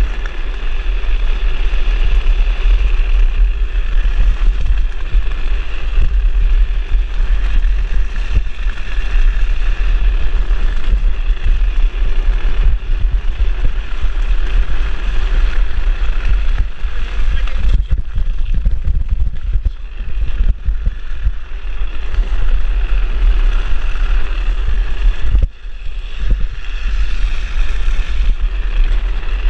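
Heavy wind buffeting on the microphone of a drift trike running fast downhill, a steady low rumble, with the hiss of its wheels rolling and sliding on asphalt above it. The rumble eases briefly about two-thirds of the way through and again near the end.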